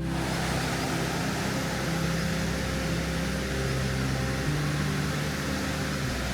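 Steady road and engine noise of a moving campervan heard from inside the cab: an even hiss with a low engine hum that shifts in level a couple of times.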